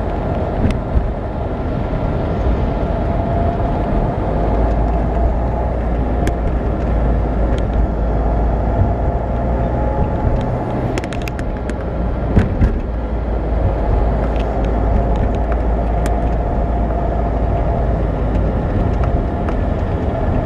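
Car cabin road noise while driving: a steady low rumble of tyres, engine and wind, with a wavering tone in the middle range. A few light clicks and knocks come through, most of them around the middle.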